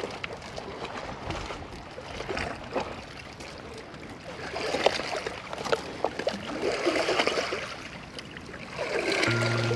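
Small waves lapping and trickling among the rocks at the water's edge, with scattered light clicks, swelling louder twice. A music jingle starts just before the end.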